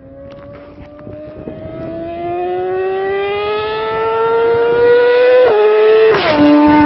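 High-performance engine at full throttle, its note climbing steadily and getting louder as the vehicle approaches at speed. Near the end the pitch drops sharply in two steps, with a brief rush of noise as it passes.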